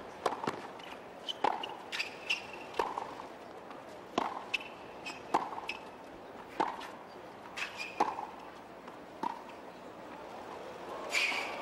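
A tennis rally on a hard court: the ball is struck by racquets back and forth, one sharp pop about every 1.3 seconds, with short squeaks from the players' shoes between shots. A brief rush of noise comes near the end.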